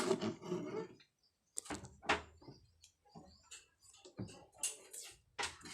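Scattered sharp clicks and light knocks of small objects being handled, about six separate hits, with a brief child's voice at the very start.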